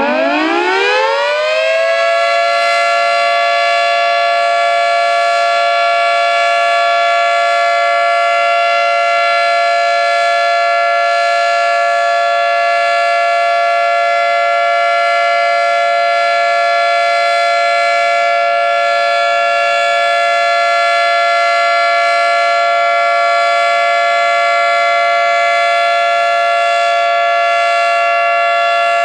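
Federal Signal 3T22 civil defense siren winding up, its pitch rising for about the first two seconds, then holding a loud, steady two-note chord.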